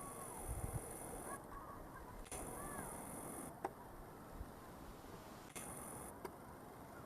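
Faint outdoor ambience with soft, arching bird chirps and a high insect hum that cuts in and out, with a few light clicks.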